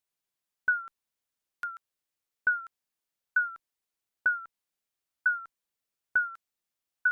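Digital countdown timer beeps: a short electronic blip, dipping slightly in pitch and opening with a click, repeating about once a second.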